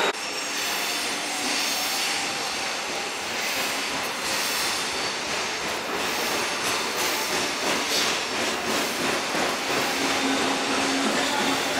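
SuperVia electric commuter train running on the rails: steady wheel-on-rail rumble with faint higher squealing.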